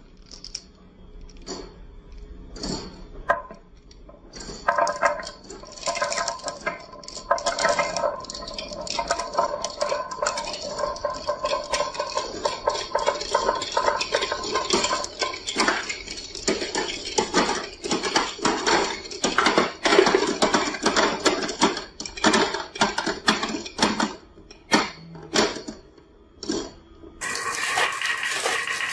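Glass marbles rolling and clacking down a wooden HABA zigzag marble slope: a few separate clicks at first, then from about four seconds in a dense, continuous rattle of many marbles knocking against the wooden baffles and each other. Near the end a steady hum takes over.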